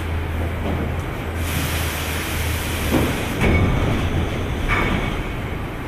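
Automotive stamping press line running: a steady low machinery hum with stretches of hissing air, and a few heavier clunks around the middle.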